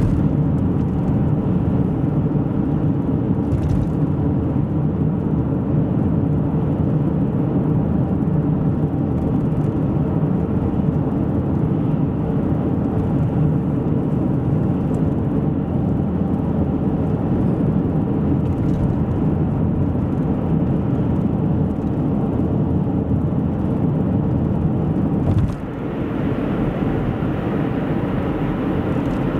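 Steady road and engine noise of a car cruising at constant speed, heard from inside the car: a low tyre rumble and drone. It briefly dips and shifts in tone about four seconds before the end.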